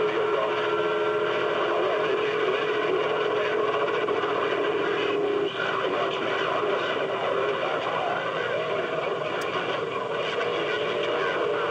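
CB radio receiver on channel 28 hissing with skip static, faint garbled voices buried in the noise. A steady tone rides over the static and cuts off about halfway through.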